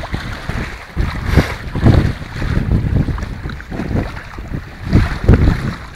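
Wind buffeting the microphone in irregular gusts, the strongest about two seconds in and again near the end, over the wash of the sea.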